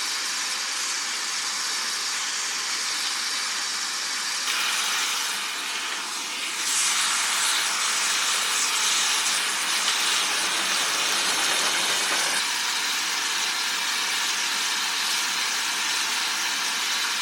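Steady, loud hissing from thermite rail welding, from the gas preheating torch or the burning thermite charge. It starts abruptly, grows louder and brighter about five to seven seconds in, and settles again near twelve seconds.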